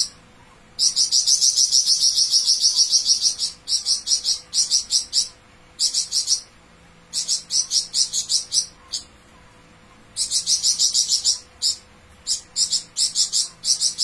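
Caged flamboyan songbird in full song ('gacor'): long bursts of rapid, sharp, high repeated notes, about seven a second. The first burst lasts about three seconds, and shorter bursts follow after brief pauses.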